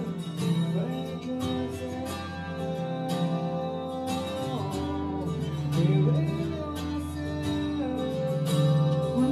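Live acoustic guitar music: an instrumental passage of plucked and strummed chords over long held notes.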